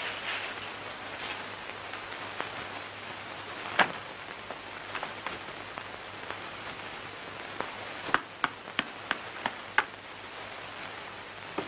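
Steady hiss of an old film soundtrack with scattered sharp clicks. Near the end there is a quick run of six sharp clicks or slaps, about three a second.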